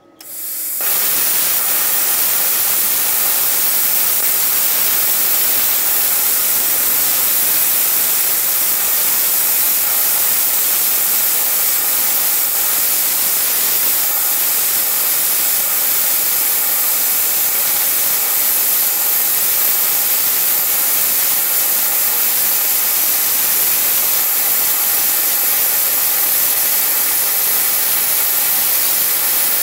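Tenya CUT50 plasma cutter's PT31 torch cutting through 10 mm steel plate: a loud, steady hiss of compressed air and arc. It comes on within the first second and runs unbroken.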